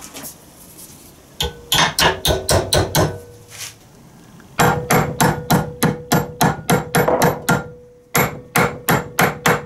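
Hammer striking a thin metal furniture corner bracket clamped in a bench vise, bending a small offset into it. Three runs of quick blows, about four a second, with short pauses between, and a steady metallic ring under the later runs.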